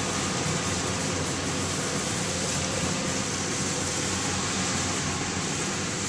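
Kubota combine harvester running steadily as it cuts and threshes rice, its engine and machinery giving a continuous even drone.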